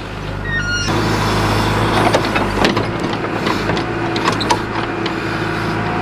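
Backhoe's diesel engine running under load while its bucket digs into the soil, with scraping and knocks of dirt clods. The sound steps up in loudness about a second in.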